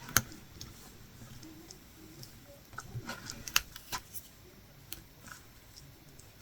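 Faint, scattered small clicks and taps of a latch hook tool pulling yarn through the mesh canvas, with a loud click near the start and a quick run of clicks around the middle.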